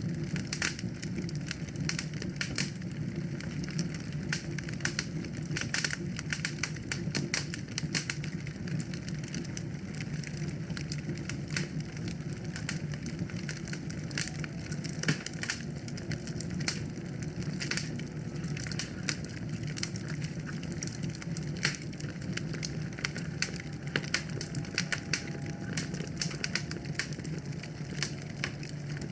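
Wood fire in a fireplace crackling and popping in quick, irregular snaps over a steady low rumble.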